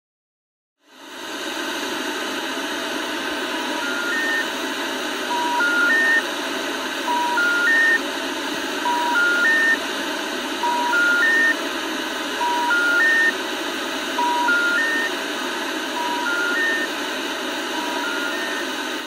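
A steady hiss of static starts about a second in. Over it a telephone special information tone repeats about every 1.7 seconds: three short beeps stepping up in pitch. This is the exchange intercept signal that a call cannot be completed as dialled.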